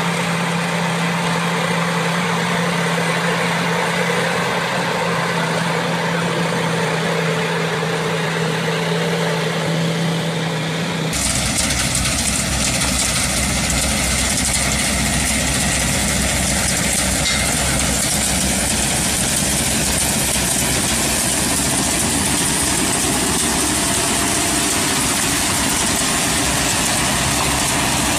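Tracked combine harvester running with a steady engine hum. About eleven seconds in it switches abruptly to a chili pepper harvester working, a rougher, fuller mechanical rumble with noise from low to high.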